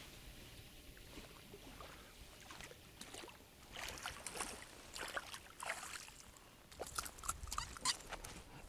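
Faint scattered splashes and rustles from a hooked pike being drawn in to the riverbank on a spinning rod, growing busier over the last couple of seconds.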